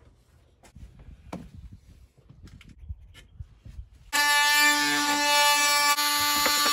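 A few light knocks and taps, then from about four seconds in a power drill runs loud and steady with a high whine, drilling a hole.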